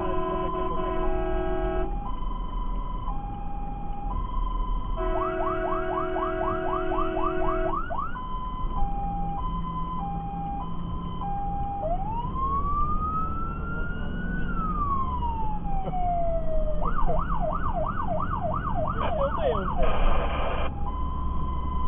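Fire engine's electronic siren heard from inside the cab, cycling through its modes. It starts with a two-tone hi-lo, switches to fast yelping sweeps, then gives a slow wail that rises and then falls, then more fast yelps. Near the end comes a short blaring horn blast, and it goes back to the two-tone, over the truck's low engine rumble.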